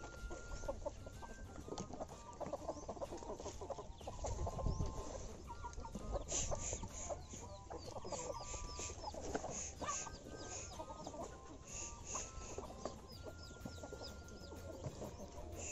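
Domestic chickens clucking repeatedly in short calls, over the rustle of chopped cassava leaves and rice bran being mixed by hand in plastic basins.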